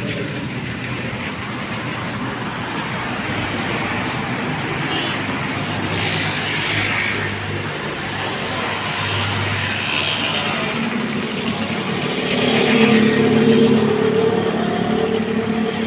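Street traffic noise, with the hum of a motor vehicle engine growing louder about twelve seconds in and easing off near the end.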